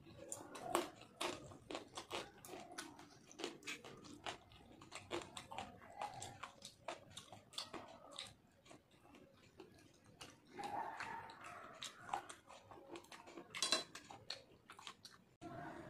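Close-up chewing and biting of food eaten by hand: a steady run of quick, wet mouth clicks and smacks, with a denser stretch of chewing about eleven seconds in.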